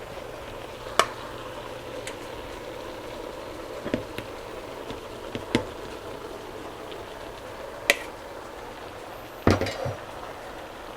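Cabbage and sauerkraut frying in butter in a pot, a steady sizzle, with a few sharp clicks and knocks of a utensil against the pot. The loudest knocks come near the end.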